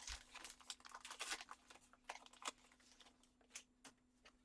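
Faint crackling and clicking as trading cards and their foil pack wrappers are handled. It is dense for about the first two and a half seconds, then thins out to a few scattered clicks.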